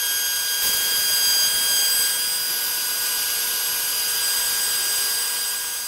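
DeWalt 611 compact router on a CNC machine, spinning a cutter through quarter-inch aluminium plate: a steady high whine of several tones over a hiss of cutting.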